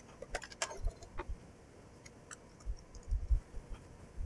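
Plastic shell of a landline telephone handset being handled and opened: scattered small plastic clicks and snaps, with a few dull knocks about three seconds in.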